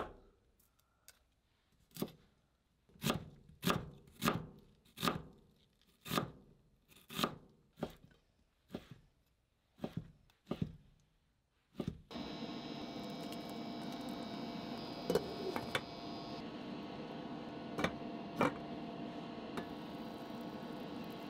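A chef's knife chopping on a plastic cutting board, about a dozen separate strokes roughly a second apart. About halfway through the chopping stops and water simmering in a stainless steel pot takes over as a steady bubbling hiss, with a few light metal clinks.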